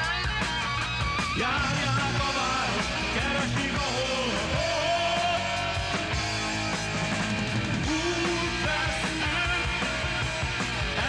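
Rock music from a band, with electric guitar and drums, playing without a break.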